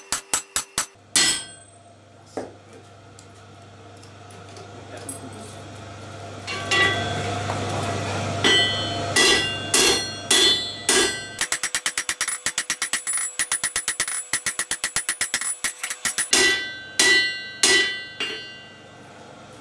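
Hand hammer forging a red-hot stainless steel bar on an anvil, the anvil ringing after each strike. A quick run of blows is followed by a pause of a few seconds. Then come heavy blows about two a second, a long fast run of lighter strikes, and a few more heavy blows near the end.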